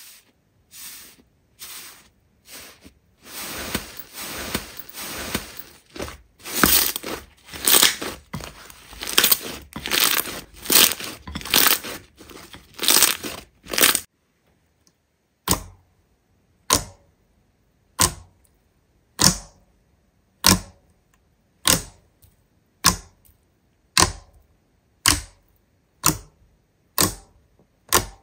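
Slime being worked by hand: a dense, irregular run of sticky crackles for the first half, then after a short pause a steady row of single sharp pops or taps, about one a second.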